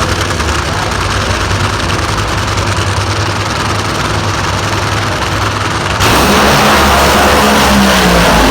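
Nitro-burning drag racing engines running at idle with a low steady rumble; about six seconds in, the sound abruptly becomes much louder and harsher.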